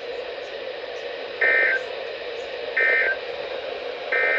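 EAS end-of-message data tones on NOAA Weather Radio: three short bursts of two-tone digital warble, about a second and a half apart, over steady radio hiss. They signal the end of the weekly test broadcast.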